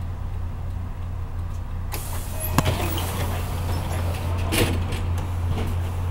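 A 1995 Hino Rainbow city bus's diesel engine idles with a steady low hum. About two seconds in a hiss starts, with a sharp click soon after and a brief clatter a couple of seconds later.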